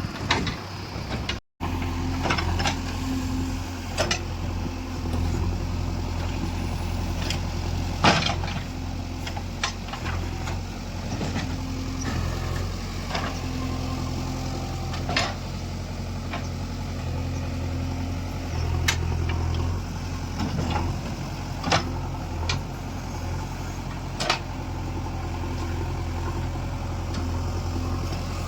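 JCB 3DX backhoe loader's diesel engine running steadily, with sharp knocks every few seconds, the loudest about eight seconds in.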